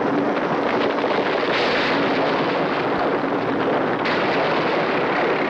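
Loud, steady rumble and clatter of heavy construction machinery: a dense noise with no clear rhythm that grows harsher briefly about a second and a half in and again about four seconds in.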